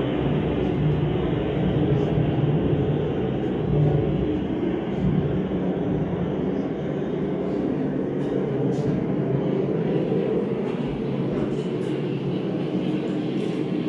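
Steady low rumbling drone played as the sound effects of a recreated air-raid exhibit.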